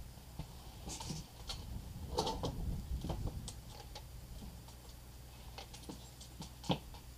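Scattered small clicks and knocks of a Remington 700 bolt-action rifle being handled and settled on its bipod at a concrete bench, the sharpest click near the end, over a steady low rumble.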